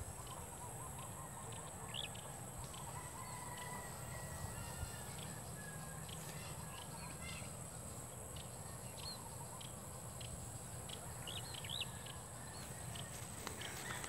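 Faint rural field ambience: scattered short bird chirps, possibly from distant fowl, over a steady high-pitched hum and a low wind rumble.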